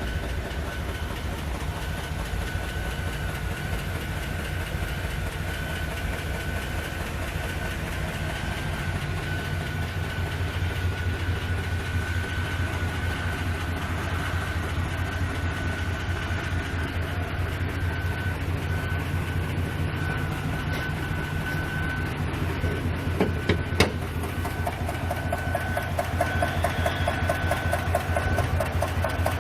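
Truck V8-class engine idling with a fast, even ticking, the ticking noise that accompanies a P0300 random-misfire code with the check-engine light on. Two sharp clicks stand out about three-quarters of the way through.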